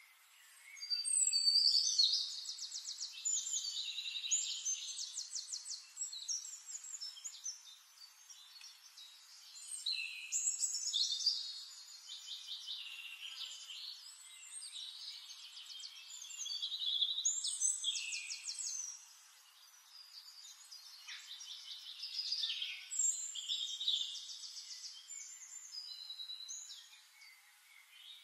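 Songbirds singing in long high-pitched phrases of rapid trills and chirps, with quieter gaps between the phrases.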